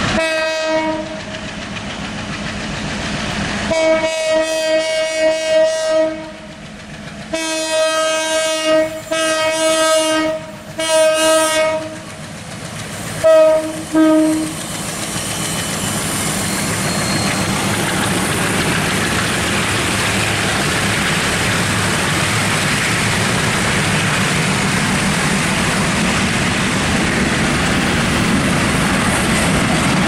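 Horn of an MLW diesel locomotive hauling a freight train, sounding about seven blasts in the first half: a short one, a long one of about two seconds, then several shorter ones, the last two in quick succession. The locomotives and container wagons then pass close by, a steady running noise that lasts to the end.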